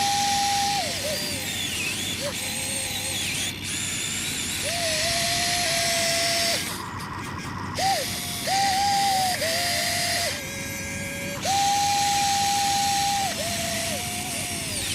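Huina RC excavator's electric motors and gearboxes whining as the boom, arm and bucket are worked, each movement a whine that rises, holds at one of a few steady pitches for one to two seconds, then drops away, several times over.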